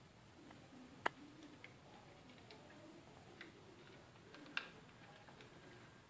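Near silence with a few faint ticks and two sharper clicks, about a second in and again some three and a half seconds later: small plastic parts being handled as a zip tie is fastened around a washing machine's lid-lock switch.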